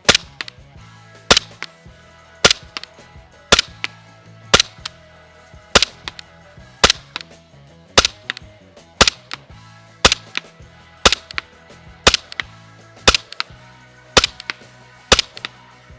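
Umarex Glock 17 Gen 4 gas blowback airsoft pistol firing steadily, about one sharp pop a second, each shot with the slide cycling. Background music plays underneath.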